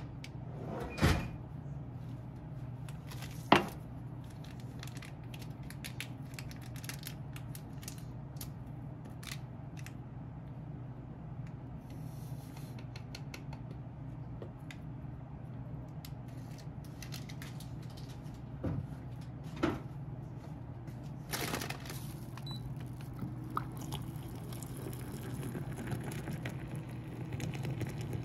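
Steady low hum with scattered faint clicks and handling noises, broken by a few sharp knocks, the loudest about three and a half seconds in.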